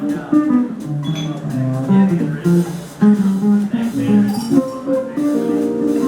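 Small jazz group playing, with a guitar to the fore in plucked single-note lines and chords.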